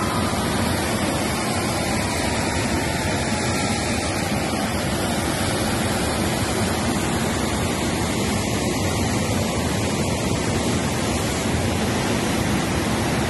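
Flood-swollen river water rushing through a barrage's gates and churning over its concrete apron: a steady, loud rush of turbulent water.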